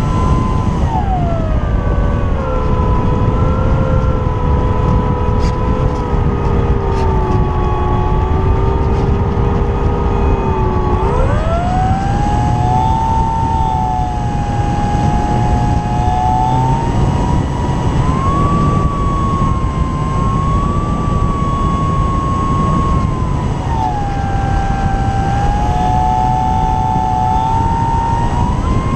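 The electric motor and propeller of an E-flite Apprentice S 15e RC plane whine in flight over heavy wind rush on a camera strapped under the fuselage. The pitch sinks about a second in as the throttle comes back, and climbs sharply around eleven seconds in. It steps up again a few seconds later, dips again after about 24 seconds, and rises near the end.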